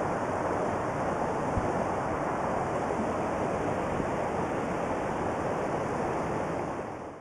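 Mountain stream rushing steadily over a rocky riffle, a constant even hiss of moving water that fades out near the end.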